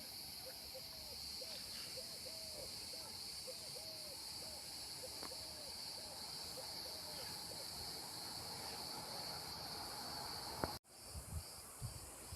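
Steady, high-pitched insect chorus, with faint short rising-and-falling calls repeating underneath. Near the end the sound cuts abruptly, then a pulsing chirp and a few soft knocks follow.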